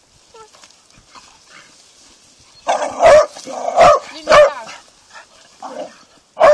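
Dog barking: a quiet start, then a run of loud, short barks from about three seconds in, with another at the end.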